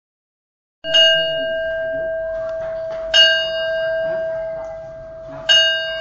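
A small hand-held metal cymbal struck three times, about two and a half seconds apart, the first stroke about a second in; each stroke rings on with a clear bell-like tone that slowly fades.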